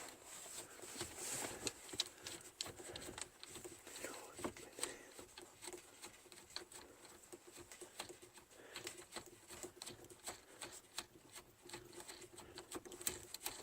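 Faint, irregular clicks and taps of small parts and plastic dash trim being handled inside a car's cabin during removal of the ignition switch.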